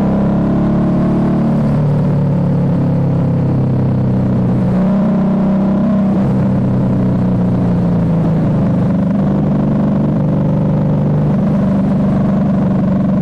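Harley-Davidson V-Rod Night Rod Special's V-twin engine running under way, its note rising and falling a few times with the throttle.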